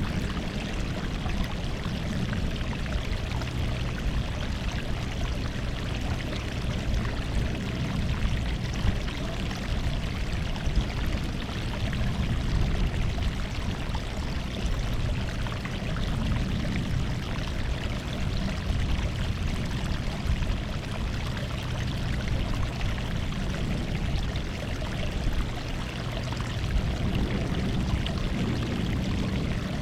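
Sea water washing on the shore in small waves: a steady wash of noise with a low rumble that swells and eases gently.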